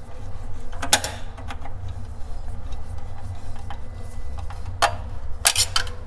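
Screws being tightened by hand to fix a metal telescopic drawer channel inside a cabinet: a few sharp metal clicks and scrapes, about a second in and again near the end, over a steady low hum.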